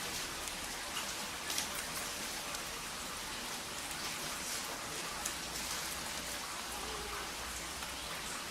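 Steady rain falling, with scattered individual drops tapping close by.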